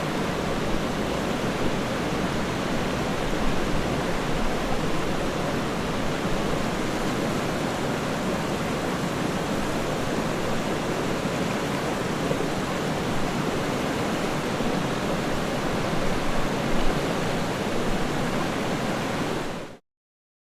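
Steady rushing water, an even hiss with no distinct splashes or tones, that cuts off abruptly near the end.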